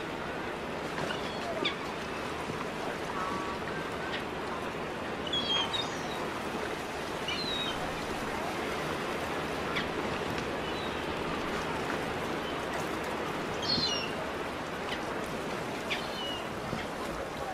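Steady outdoor ambience like water and distant murmur, with short high bird chirps now and then, clearest about five seconds in and again near fourteen seconds.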